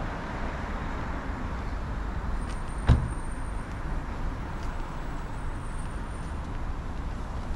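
Steady city road traffic noise with a low rumble, and one sharp knock about three seconds in.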